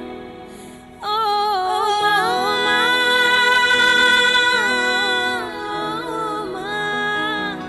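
A song with a woman singing long, sliding notes over a steady musical accompaniment. The singing comes in about a second in, after a brief quieter moment.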